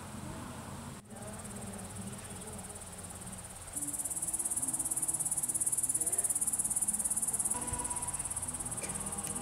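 Night insects trilling, a steady high, rapidly pulsing chirr that becomes much louder about four seconds in.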